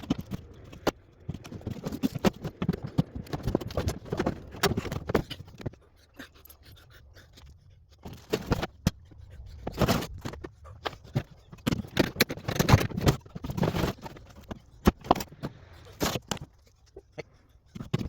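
PTAC air-conditioner units being handled and laid out: irregular clunks, knocks and scraping of their metal casings.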